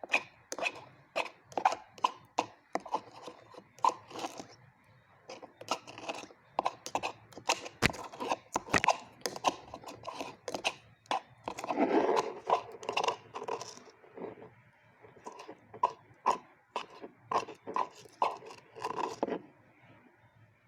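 Clear slime being worked by hand, with irregular wet clicks and small pops, thickest a little past halfway.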